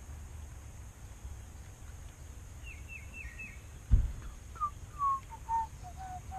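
A bird calling: a quick run of four short high chirps about halfway in, then a slow series of clear whistled notes stepping down in pitch, about two a second. A single dull thump comes just before the whistled series and is the loudest sound.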